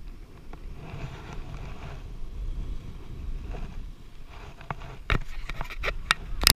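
Wind buffeting the microphone with a fluctuating low rumble, then a quick run of sharp clicks and knocks about five seconds in, the last the loudest.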